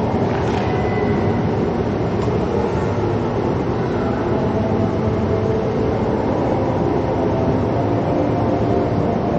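Steady low rumble of a car driving slowly, engine and tyre noise.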